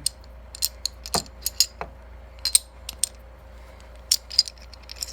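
Small steel parts of a Micro Draco AK-pattern pistol clicking and clinking as a part is worked free during field stripping: a string of sharp, uneven clicks, a dozen or so.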